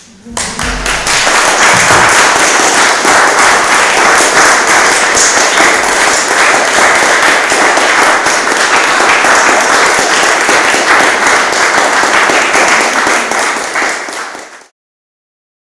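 Audience applauding: many hands clapping, swelling in within the first second, holding steady, then cut off abruptly near the end.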